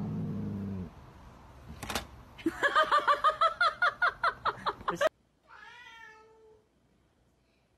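A rapid run of short, high-pitched vocal sounds, about six a second, then a domestic cat's single drawn-out meow that falls in pitch.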